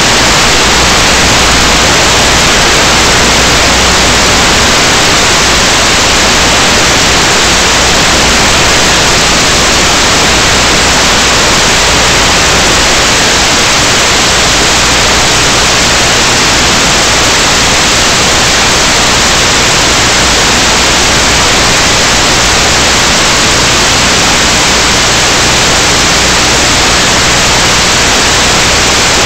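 Loud, steady static hiss on the audio track of an analog FPV video receiver recorded on EV800D goggles, with a faint low hum underneath.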